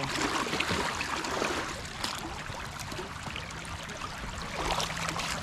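Shallow creek water sloshing and splashing around boots wading in it, with short splashes over the creek's steady rush.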